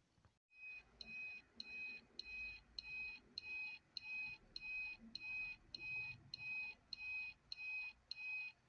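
Electronic beeping: a short, bright, pitched beep repeating about twice a second. It starts abruptly about a second in and cuts off abruptly at the end.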